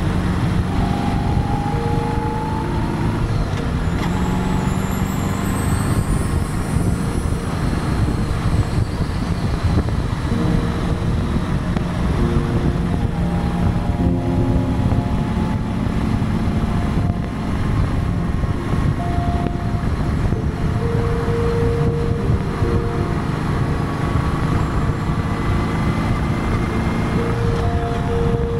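Honda Goldwing sidecar motorcycle cruising at road speed: steady wind rush on the microphone and tyre noise over the running engine.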